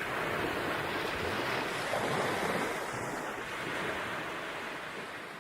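Ocean waves washing, a steady rushing noise that swells and eases, slowly fading toward the end.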